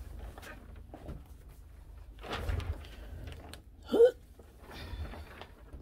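Freezer paper rustling softly as a gloved hand lays it flat and smooths it on a table. About four seconds in there is one short, sharp sound, the loudest moment.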